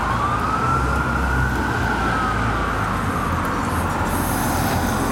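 Fire truck siren in a slow wail, rising and then falling over a few seconds, with the next rise starting near the end. Low traffic and truck engine rumble underneath.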